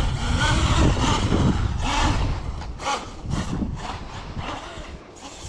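Electric RC truck's brushless motor whining, its pitch rising and falling as it speeds up and slows, growing quieter near the end.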